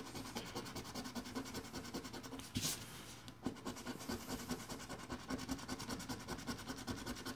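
A coin edge scratching the latex coating off a scratch-off lottery ticket in rapid back-and-forth strokes.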